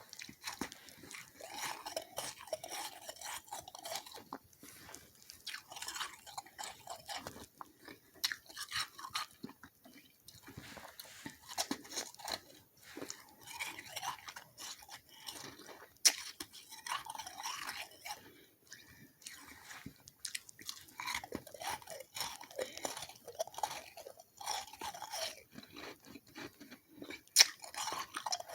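Close-miked chewing of soft, slushy freezer frost: repeated clusters of crunching, with two sharp, louder clicks, one about halfway through and one near the end.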